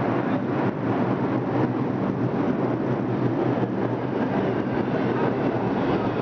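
New York City subway train at the platform, a steady loud rumble.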